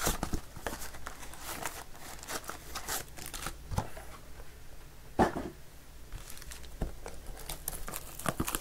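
Football trading-card boxes being opened by hand: wrappers torn and crinkled and cardboard handled, with irregular rustling and scattered sharp rips, the loudest about five seconds in.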